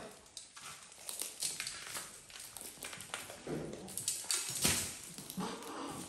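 Macaws cracking and picking through seed mix in a metal dish: a run of small clicks and crunches. Three brief animal calls come between about three and a half and five and a half seconds in.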